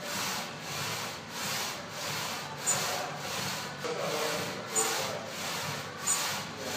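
Plate-loaded leg press machine worked through steady reps: a rhythmic rasping slide of the weighted sled, repeating about every two-thirds of a second.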